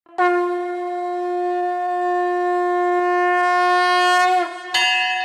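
One long blown wind-instrument note, held steady for about four seconds and dipping in pitch as it dies away. A second, shorter note follows near the end.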